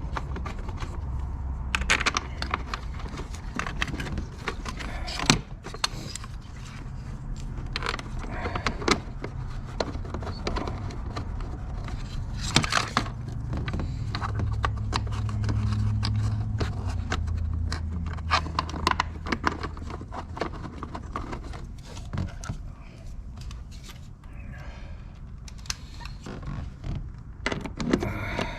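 Scattered metallic clicks, clinks and scrapes of small bolts and hand tools being handled while the 10 mm bolts of an engine-bay cover are fitted, over a low steady hum.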